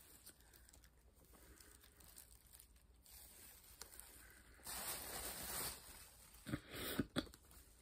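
Rustling as small plush toys with paper hang tags are handled, with a louder rustle about five seconds in and a few soft knocks and rustles near seven seconds.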